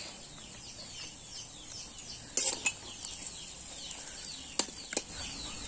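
Metal ladle stirring fried onions and chilli powder in an iron kadai, with a few sharp clinks of the ladle against the pan, two about two and a half seconds in and two more near the end. Birds chirp in the background throughout.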